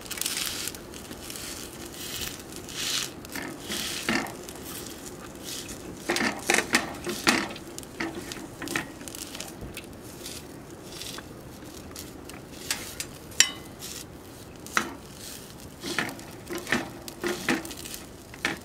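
Irregular light clicks and knocks of things being handled close by, with a cluster about six to seven seconds in and one sharp click about thirteen seconds in.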